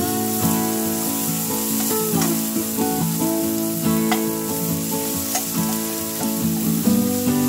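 Chopped onions sizzling in hot oil in a stainless steel pan, stirred with a spatula, as they sauté until translucent. Background music with sustained notes plays throughout.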